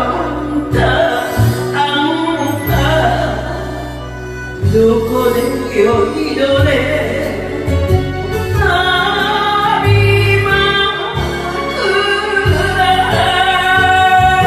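An elderly woman singing an enka ballad into a handheld microphone over a recorded backing track with a steady bass beat. From about halfway through she holds long notes with vibrato.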